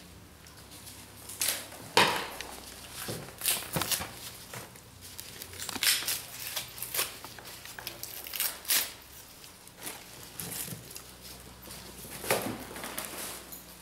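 Dry pieces of tree bark rustling and clattering as they are handled, sorted from a pile and pressed onto polystyrene forms, with irregular scrapes and knocks.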